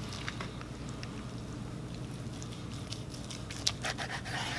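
A long slicing knife cutting through a smoked pork collar with a crusty bark on a wooden board: soft, moist squishing with faint scattered crackles and clicks, the sharpest about three and a half seconds in.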